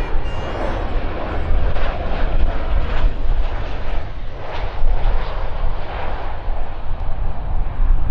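Jet engines of a Boeing 737 airliner on landing, a steady loud rush over a deep rumble that swells a little about halfway through as the aircraft passes and flares to touch down.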